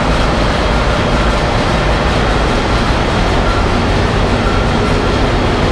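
B&W two-stroke marine main engine running, at about 51 rpm, making a loud, steady engine-room din with no let-up.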